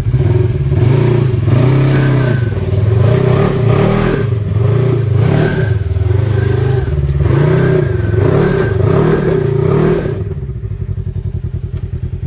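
Polaris RZR XP 1000 side-by-side's parallel-twin engine revved in repeated throttle bursts, its pitch rising and falling about once a second as it crawls up over rock ledges; about ten seconds in it drops back to a steady idle.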